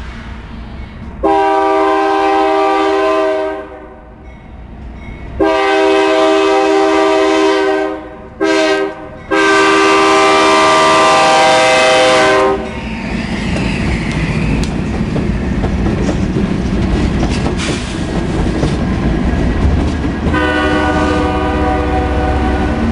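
BNSF freight train's lead diesel locomotive sounding its multi-note horn for a grade crossing: long, long, short, long. Then a string of diesel locomotives rumbles past close by, and the horn sounds one more long blast near the end.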